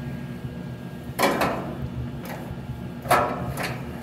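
Two loud clunks about two seconds apart as metal parts are handled during welder setup, over a steady low hum.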